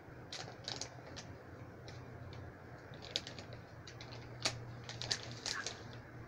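Scattered, irregular faint clicks and ticks, a few sharper and louder near the middle and towards the end, over a steady low hum.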